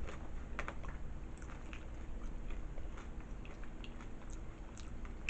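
A person chewing a mouthful of nachos, with scattered small crunches and mouth clicks.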